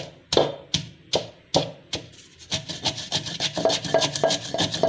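Wooden pestle pounding fresh coriander and mint leaves in a clay mortar (dauri), at about two and a half strikes a second. About two and a half seconds in, it changes to quicker, lighter grinding strokes, about five a second.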